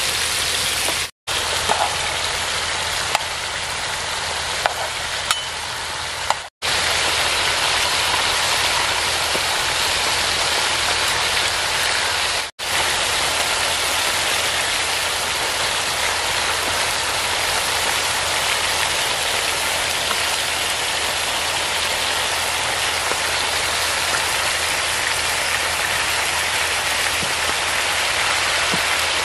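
Beef tikka patties sizzling in oil on a large flat griddle (taba), a steady hiss with a few faint clicks a few seconds in. The sound cuts out briefly three times.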